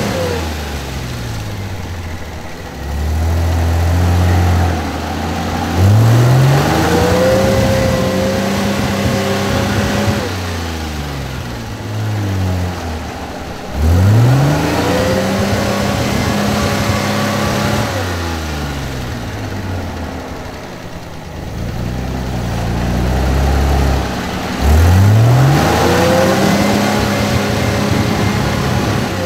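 GAZ Volga on 39-inch off-road tyres revving hard three times as it churns through a deep muddy rut, its wheels spinning and throwing mud and water. Each rev climbs quickly, holds for a few seconds, then falls away.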